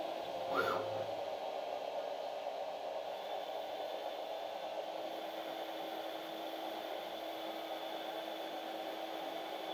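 CNC lathe running under program, a boring bar cutting inside the bore of the spinning part: a steady hiss of spindle and cutting noise with a faint steady hum. About half a second in there is a brief sharp sound with a short rising pitch.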